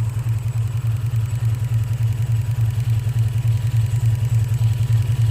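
2003 Infiniti G35's 3.5-litre V6 idling with a steady low hum and a slightly uneven pulse: a rough idle that the mechanic takes for a misfire.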